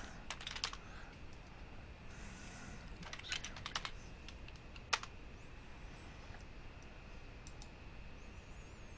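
Computer keyboard typing in two short bursts of keystrokes, the first right at the start and the second about three seconds in, then a single louder click about five seconds in. Faint steady hiss between them.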